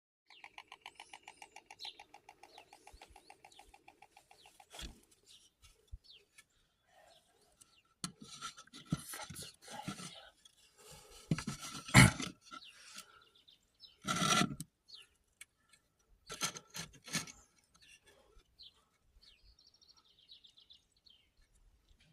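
White storks bill-clattering at the nest, a fast, even rattle of beak strikes for about the first four seconds, the typical greeting display. Irregular louder knocks and rustling follow, the loudest about twelve seconds in.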